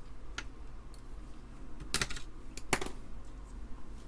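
Keycaps being pried off an Amiga computer keyboard with a small flat screwdriver: a few sharp plastic clicks, the loudest about two seconds in and again just under three seconds in.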